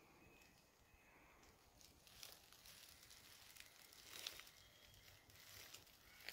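Very faint rustling and crackling of dry fallen leaves underfoot, a few soft crunches scattered through, over near-silent woods.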